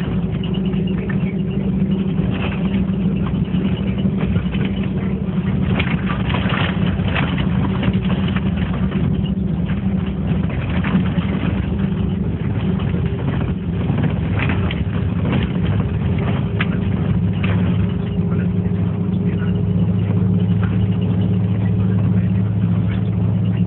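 A vehicle engine running steadily with a constant hum and road noise, as from a car on the move; a lower hum joins in about three-quarters of the way through.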